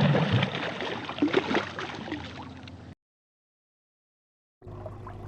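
Two separate fish and water sound-effect clips with a second and a half of dead silence between them: first a loud, splashy burst with many clicks that fades away, then a steady low hum with small bubbling blips.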